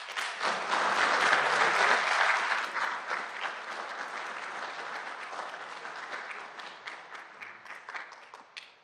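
Audience applauding, strongest in the first few seconds and then slowly dying away.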